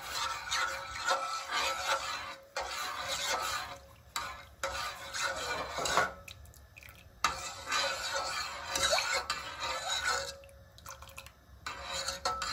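Metal spoon stirring hot coconut milk and water in a stainless steel pot, scraping and clinking against the pot's sides and bottom. It stops briefly about halfway through and again near the end.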